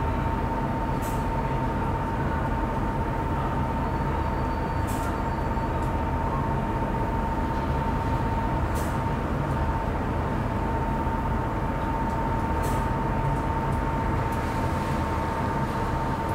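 Stockholm Metro C15 car standing with its doors open: a steady rumble with a constant whine, and a faint click about every four seconds.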